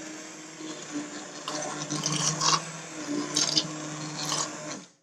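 Immersion blender running in a pot of soup, pureeing the cooked vegetables: a steady motor hum with louder churning surges now and then, cutting off just before the end.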